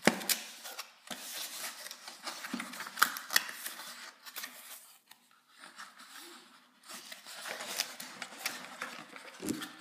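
Cardboard box being unpacked by hand: flaps folded back and a foam packing sheet pulled out, giving irregular rustling, scraping and clicking of cardboard and foam, with a short lull about halfway through.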